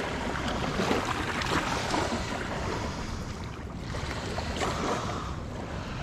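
Steady wind noise on the microphone, with rustling and small handling sounds as a barbel is unhooked from a mesh landing net on dry grass.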